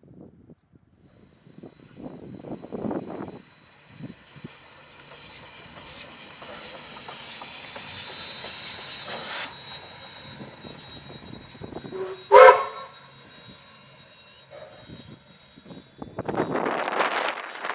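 A vintage steam tank locomotive and its short train running past, the sound swelling and fading as they go by, with one short loud whistle blast about two thirds of the way through. A rush of noise comes near the end.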